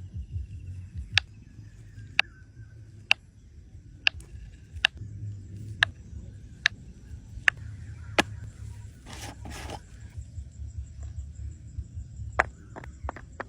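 A series of sharp knocks, about one a second, then a short scraping rush, then quicker, lighter knocks of about three a second near the end, over a low rumble.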